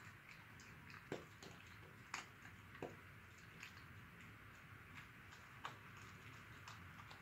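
Small dog eating dry kibble from a bowl: faint, irregular crunches and clicks about every second.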